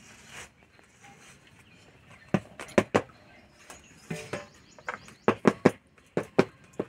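About a dozen sharp taps and knocks: a knife working round the rim of a stainless-steel plate, and a second steel plate being set down on a concrete floor.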